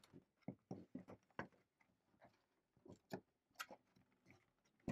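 Faint, irregular plastic clicks and taps as the Qolsys IQ Panel 2 alarm panel is hinged down onto its back plate and clipped in, with the sharpest click near the end.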